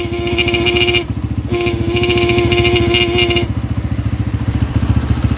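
Honda CG125's electric horn sounding twice at a steady pitch: a short blast of about a second, then a longer one of about two seconds. The bike's single-cylinder four-stroke engine idles underneath throughout, running with a dead battery.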